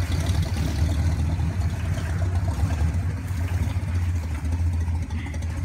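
1976 Ford Bronco's four-barrel carbureted engine running at low revs with a steady low rumble as the truck drives slowly and pulls into a driveway.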